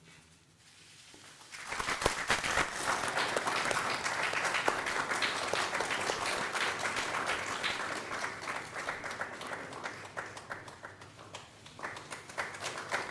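Audience applauding, starting about a second and a half in, easing a little, then swelling again near the end.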